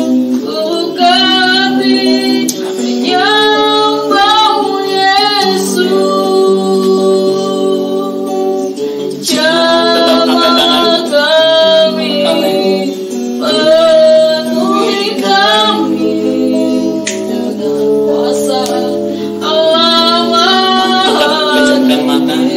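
Slow worship song: a woman's voice singing a melody with long held notes over guitar accompaniment.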